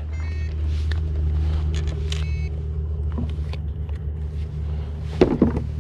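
A steady low mechanical hum, like a motor running. Short high electronic beeps come in the first half-second and again about two seconds in, and a few clicks follow, the sharpest near the end.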